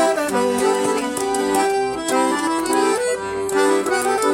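Accordion (sanfona) playing an instrumental passage between sung verses: a melody of short notes over sustained chords in a lively forró rhythm.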